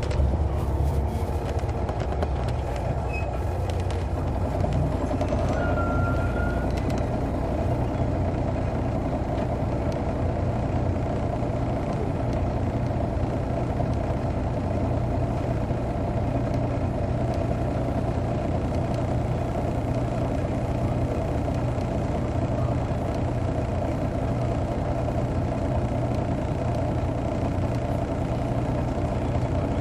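Detroit Diesel Series 60 engine of a 2002 MCI D4000 coach running steadily, heard from the rear seats inside the bus. A brief high squeak sounds about six seconds in.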